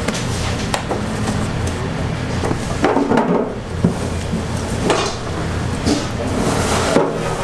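Bakery kitchen work: scattered knocks and clatter of pans and utensils over a steady hum, with music playing.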